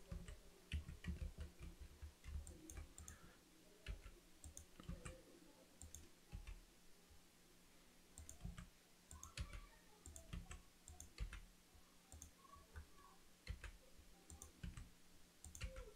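Faint, irregular clicks and taps from a computer mouse and keyboard as objects are moved and scaled.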